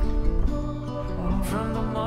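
Background music: a gentle piece with plucked acoustic guitar.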